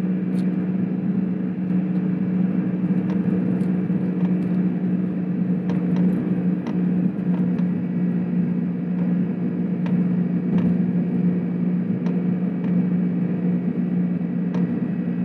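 Car cruising steadily at about 60 to 70 km/h, heard from inside the cabin: an even engine and road drone with a steady low hum, and a few faint clicks.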